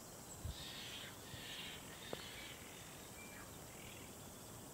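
Faint outdoor ambience with a few soft, brief, high bird calls in the first half.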